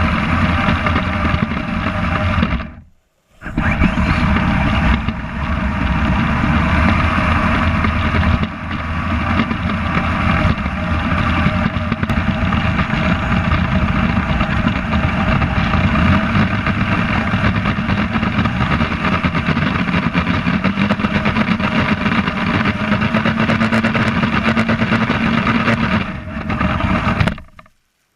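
Kyosho Blizzard FR electric RC snow cat driving, heard from a camera mounted on board: a continuous mechanical running noise of motor and tracks, its pitch rising about two-thirds of the way through. The sound cuts out briefly to silence near 3 seconds in and again near the end.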